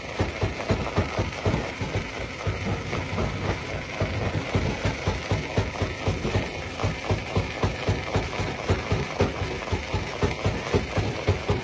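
Jaw-type stone crusher running, a steady mechanical din with an even pounding pulse of about three beats a second.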